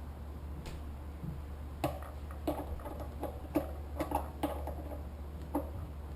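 Irregular light clicks and knocks of hand work with a screwdriver on small metal engine parts, about eight in the middle few seconds, over a steady low hum.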